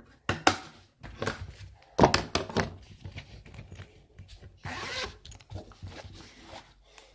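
Handling noise close to the phone's microphone: a series of sharp rubs, clicks and scrapes. The loudest come about two seconds in, and a longer rasping rub follows about five seconds in.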